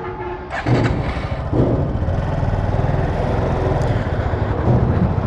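A short piece of music ends about half a second in. Then a motorcycle engine runs steadily under way, a low pulsing rumble with rushing wind noise over it.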